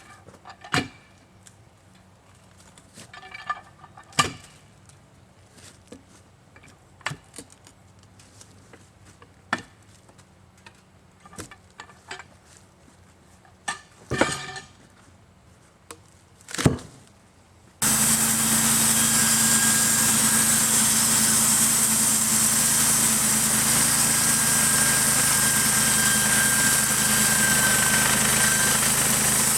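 Sharp knocks and clicks of work around the sawmill over a faint engine idle. About two-thirds through, the sawmill's engine suddenly runs loud and steady with a hiss, as when the mill is brought up to cutting speed.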